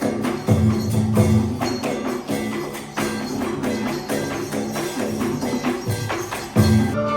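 Background music with a steady beat and shaking tambourine-like percussion.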